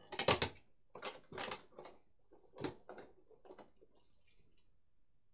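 Hard plastic clicks and knocks as Beyblade tops and stadium parts are handled, about eight of them in the first four seconds, the loudest near the start.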